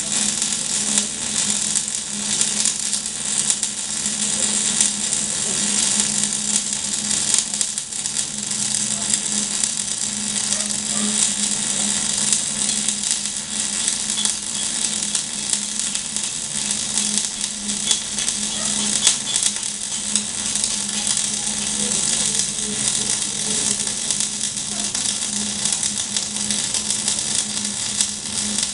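Electric arc welding on steel: the arc gives a steady, dense crackling hiss, with a steady low hum beneath it.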